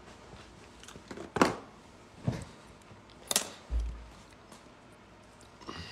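Handling noise from a smartphone being picked up and moved: a few separate knocks and rubs on the phone's microphone, the loudest about a second and a half in, with a short deep thump a little before four seconds.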